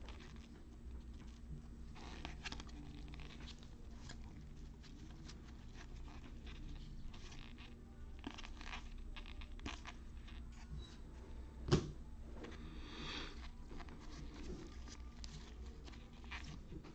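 Trading cards being slid and flipped through by gloved hands: faint scattered rustling and scraping of card stock, with one sharper click about twelve seconds in.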